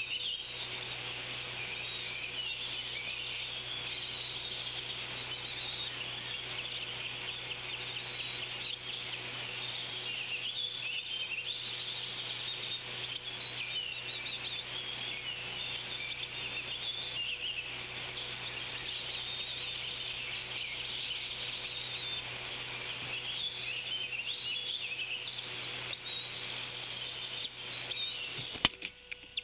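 Dense chorus of many small wild birds chirping and singing over one another, with a few clear rising whistles near the end, over a steady low hum. A single sharp click comes just before the end.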